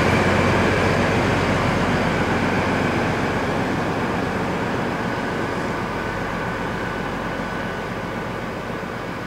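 DB class 218 V12 diesel-hydraulic locomotive hauling a double-deck passenger train away, its engine and wheels on the rails fading steadily as it recedes.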